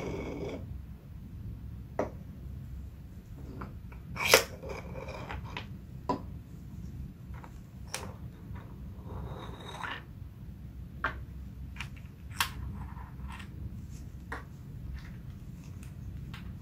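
Hard plastic clacks and clicks as 3D-printed PLA screw parts are handled and set down on a tabletop, one sharp knock every second or two; the loudest comes about four seconds in. Between them are brief scrapes of plastic on plastic.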